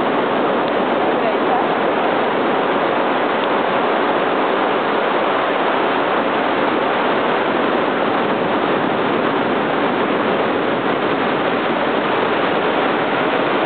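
Ocean surf breaking steadily on a sandy beach: an even wash of noise that holds at one level without a break.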